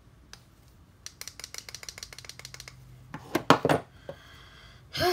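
Plastic clicks from a handheld curling wand being handled and switched on: a fast run of small sharp clicks, then a few louder knocks about three seconds in.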